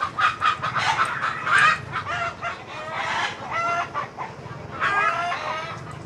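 Chickens clucking, many short calls following one another in quick succession.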